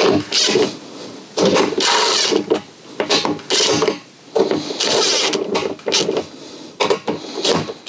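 Power drill with a socket bit running in a series of short bursts, driving home the mounting bolts of a freshwater tank sender into its plastic tank.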